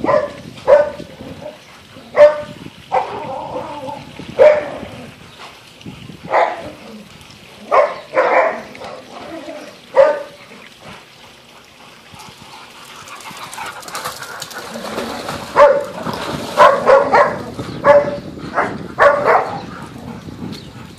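Several dogs barking in short bursts while they play-fight, with a quieter stretch around the middle and a quick run of barks near the end.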